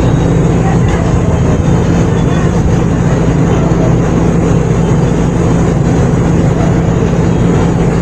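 Refrigeration vacuum pump running with a steady, unbroken low drone and hum.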